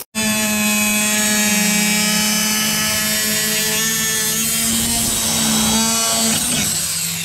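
DeWalt angle grinder running with a cut-off wheel against a van's plastic interior trim panel: a loud, steady motor whine. The pitch drops a little under a second before the end.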